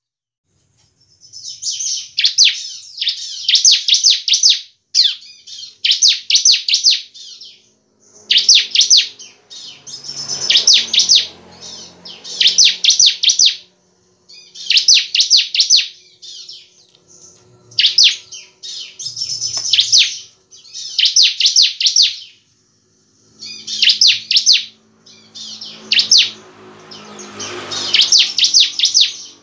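Caged bar-winged prinia (ciblek) singing hard: repeated bursts of rapid, high chattering notes, each a second or so long, with short pauses between.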